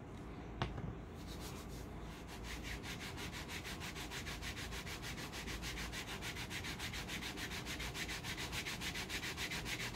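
A hand rubs a wax hair-removal paper strip back and forth over the skin of the shin in quick, even strokes, several a second, smoothing it down so the wax grips the hairs before the strip is pulled. A single knock comes just under a second in.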